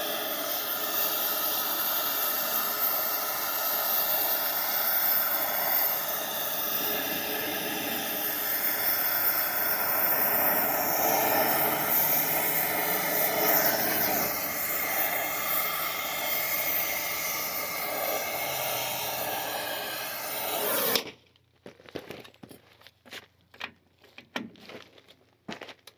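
Gas cutting torch flame hissing steadily as it heats a seized wheel lug nut red hot to free it. The hiss cuts off suddenly about 21 seconds in, followed by a few faint clicks of tools.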